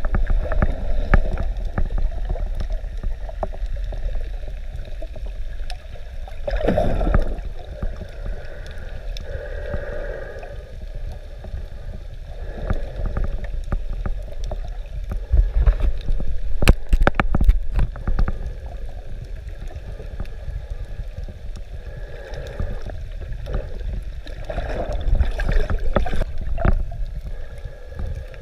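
Underwater sound picked up by a camera: a steady low rumble of moving water, scattered sharp crackling clicks, and a few louder gurgling swells of bubbles, about 7, 10 and 25 seconds in.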